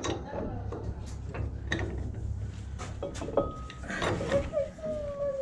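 Scattered metal clanks and knocks as streetcar brake rigging and brake shoes are handled and worked into place, with a thin metal-on-metal scraping squeal from a little past halfway to the end.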